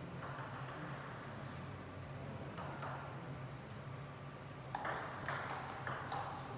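Table tennis ball clicking off bats and the table: a few isolated taps, then from about five seconds in the quick run of hits and bounces of a rally.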